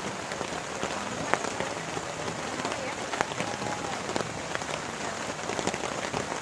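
Heavy rain falling steadily, with many sharp taps of single drops landing close by.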